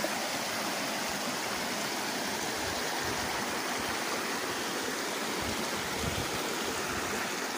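Shallow creek flowing over rocks: a steady sound of running water.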